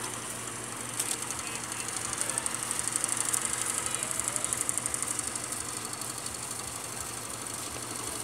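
Small boat's engine running with a rapid, even chugging that is loudest in the middle seconds.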